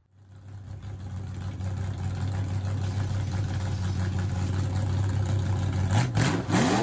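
Car engine idling with a steady low rumble that fades in, then revved up and down sharply near the end.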